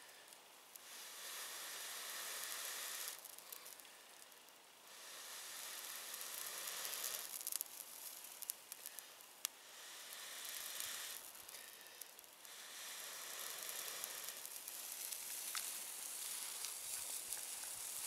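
Breaths blown into a smouldering tinder bundle of dead leaves and ferns to coax a tinder-fungus ember into flame: each blow lasts two to three seconds, with short pauses between. A few small sharp crackles come through.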